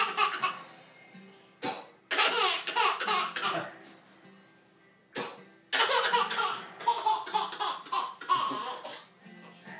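A sharp pop as a baby-bottle cap is popped out of a mouth, twice, each followed by a baby laughing hard in repeated bursts.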